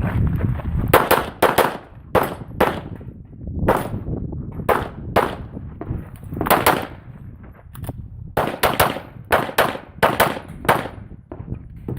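CZ Accu-Shadow pistol fired rapidly through a practical-shooting stage: about twenty shots, mostly in quick pairs, with short pauses between strings as the shooter moves between targets.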